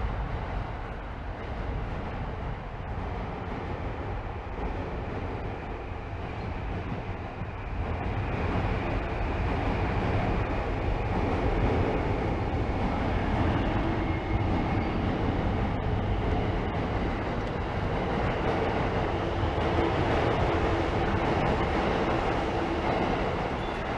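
City road traffic running steadily. About eight seconds in, a large passing vehicle makes it louder with a steady low drone, and it eases off near the end.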